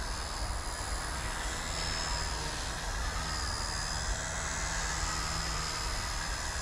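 XK K110S collective-pitch micro RC helicopter in flight: a steady high whine from its motor and rotors that drifts slightly up and down in pitch, running at low head speed on a flat 60% throttle curve, over a low rumble.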